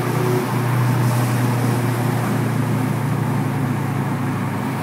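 Car engine and road noise heard from inside the cabin while driving along at steady speed: a continuous low drone with tyre and wind hiss above it.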